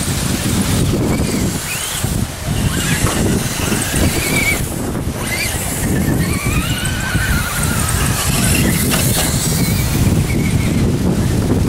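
Wind buffeting the microphone in a heavy low rumble, with thin high wavering squeals rising and falling over it.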